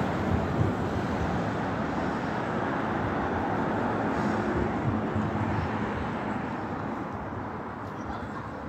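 Steady rumbling vehicle noise, easing off gradually over the last few seconds.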